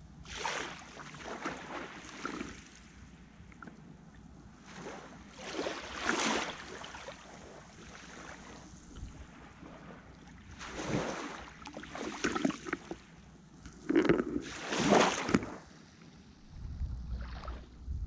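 Small sea waves lapping and washing at the water's edge in irregular surges a second or a few seconds apart, each swelling and fading, the strongest toward the end.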